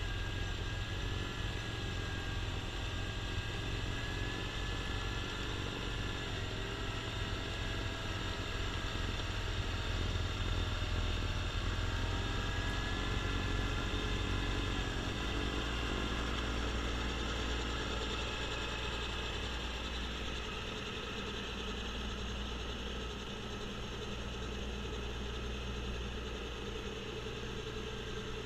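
Kubota B2650 compact tractor's three-cylinder diesel engine running steadily, driving a front-mounted snowblower that is throwing snow. The sound grows a little quieter in the second half as the tractor moves farther off.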